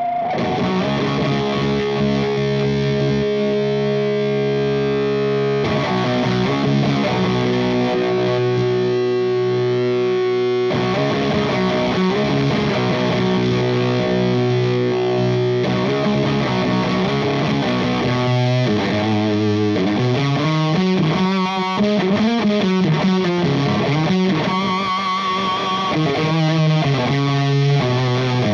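Electric guitar through a Valco Bloodbuzz drive/fuzz pedal, the drive stacked on the fuzz, giving a heavily distorted, angry tone. Long held chords change about every five seconds, then a faster riff of moving notes runs through the last ten seconds.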